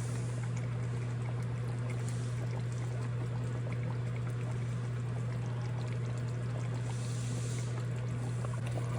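Chicken frying in a pan, with a light sizzle and scattered small crackles over a steady low hum.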